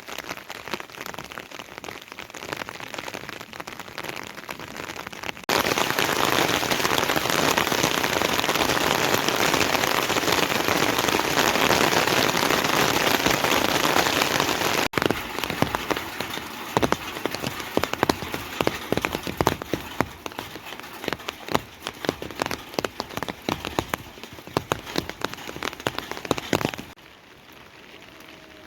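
Heavy rain falling. Partway in it becomes a dense, loud, steady hiss. That gives way to a patter of separate heavy drops striking a surface, and the sound drops abruptly to a softer hiss near the end.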